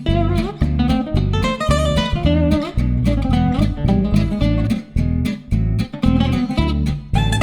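Background music: a strummed and plucked acoustic guitar with bass and a steady rhythm, in a flamenco-like style.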